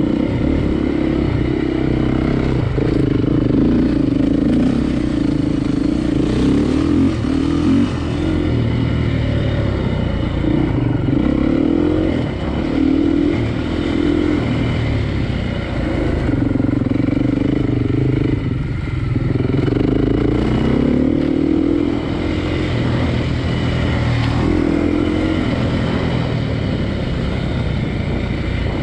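Classic vehicle's engine running under way, its pitch repeatedly rising and falling as it is revved and shifted through the gears.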